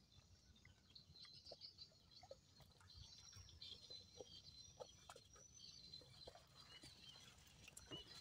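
Near silence with a faint background of birds chirping and a few scattered small ticks and clicks.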